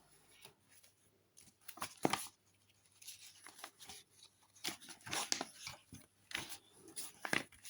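Small plastic Lego pieces clicking and rattling as they are handled and fitted onto the game, in irregular clicks and short rustles.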